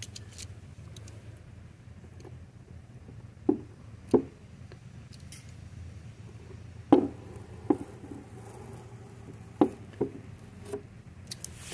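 Fingernail picking at and peeling tape off a hard plastic Fiat Uno tail light lens freshly sprayed with dark tint. The result is a scattered handful of short, sharp clicks and ticks over a steady low hum.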